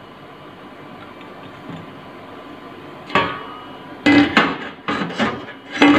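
Stainless-steel lid of a Nüve laboratory water bath being handled and closed: a series of metallic clanks and knocks starting about three seconds in, the loudest around four seconds and near the end, over a faint steady hum.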